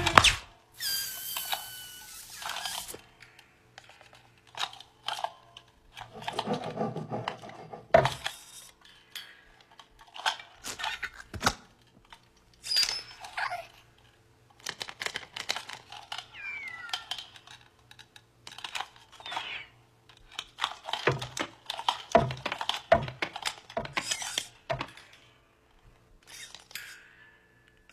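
Animated desk-lamp foley: a hissing, whistling squeal of air as the rubber ball deflates about a second in. Then scattered squeaky creaks of the lamps' spring-loaded joints and sharp taps of a lamp base on a wooden table, with quiet gaps between.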